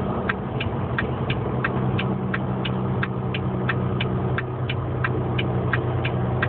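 Semi truck's diesel engine running steadily while the truck descends a steep grade. A light ticking repeats about three times a second over the engine.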